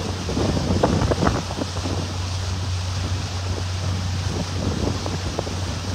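Boat motor running with a steady low hum, under wind buffeting the microphone and the rush of water.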